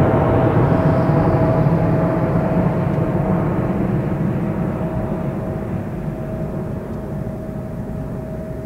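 Boeing 777-200ER jetliner's twin GE90 turbofans at takeoff power during the climb-out, a dense rumbling roar with a steady tone running through it, fading gradually as the aircraft climbs away.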